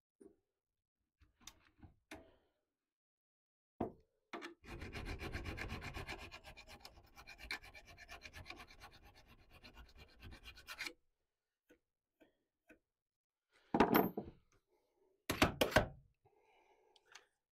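A thin metal tool rasping along a clamped steel saw blade for about six seconds, a fine run of rapid ticks. Near the end, two sharp clacks about a second and a half apart as a bar clamp is worked.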